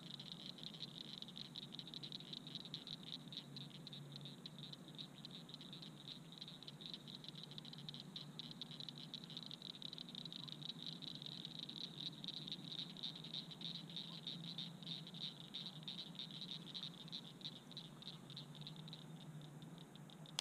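Faint night chorus of calling frogs: a steady, high, fast-pulsing trill that carries on without a break, over a faint low hum.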